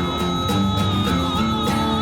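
Background music: a guitar-led rock track with a steady beat and a held high melody note.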